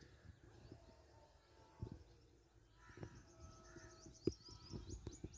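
Faint outdoor birdsong: crows cawing and small birds chirping, with a quick run of high chirps in the second half. Occasional low thumps sound under it.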